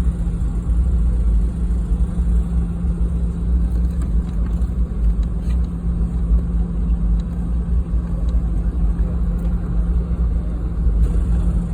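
Steady low rumble inside the cabin of a Boeing 717-200 airliner, from its Rolls-Royce BR715 engines and the airflow, with a steady hum underneath.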